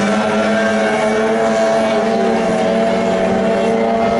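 15 hp outboard motor of a small racing boat running at speed, holding a steady high engine note.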